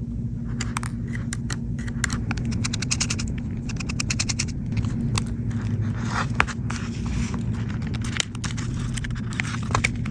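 A small tool scraping and clicking inside an iPhone's charging port, picking out rice grains stuck there after the phone was dried in rice, with a steady low hum underneath.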